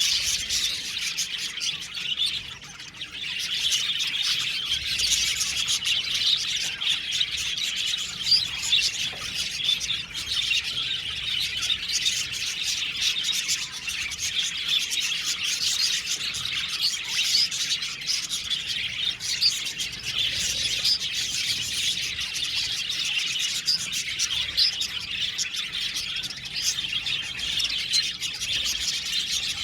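A flock of budgerigars chirping and chattering together, many overlapping short warbling calls without pause.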